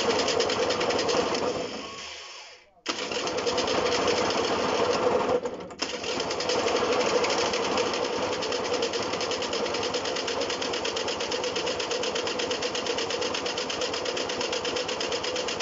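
Honda SH50 scooter's small two-stroke engine running fast on its first start after years standing: it dies away about two seconds in, catches again suddenly just before three seconds, stumbles briefly around five and a half seconds, then runs on steadily at high revs and cuts out at the very end. It revs high and won't settle to an idle, which the owner thinks is fuel starvation or a carburettor that needs cleaning.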